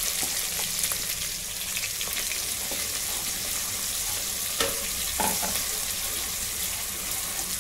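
Chopped capsicum, garlic, ginger and green chillies sizzling in hot oil in a kadai as they are stirred with a spoon: a steady frying hiss.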